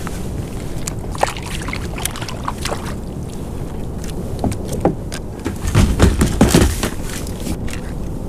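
Clicks and knocks of gear being handled on a plastic fishing kayak, with a louder cluster of knocks about six seconds in, over a steady low wind rumble.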